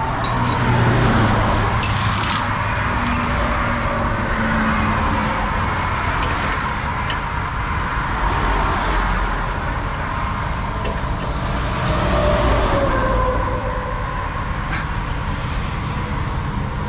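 Interstate traffic passing close by, rising and falling as vehicles go by, loudest about a second in, around eight seconds and near twelve seconds. Scattered light clicks of hand tools or metal parts sound over it.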